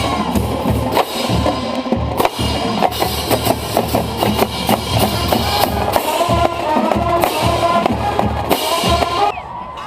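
Parade band music with loud drumming, bass drum and snare beating under the tune, that stops abruptly about nine seconds in.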